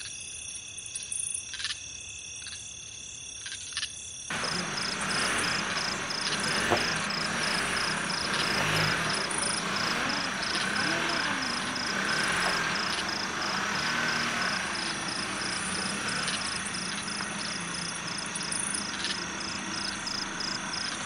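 Night insects, crickets among them, chirping in a steady fast pulsing trill. About four seconds in, a louder even noise comes in suddenly and stays under the chirping.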